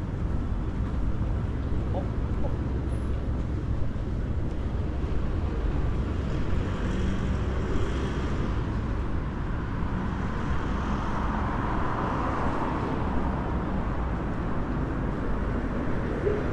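Steady low rumble of city street traffic from passing cars. The traffic grows louder for a few seconds a little past the middle, as a vehicle goes by.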